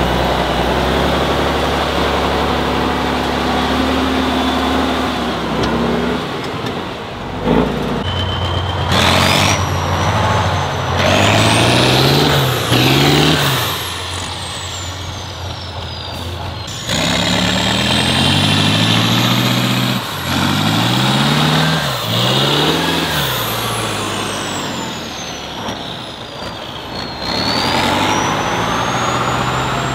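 Heavy off-road trial truck diesel engines revving hard and easing off again and again, each surge carrying a high whistle that rises and falls with the revs. The sound changes abruptly several times, as shots switch.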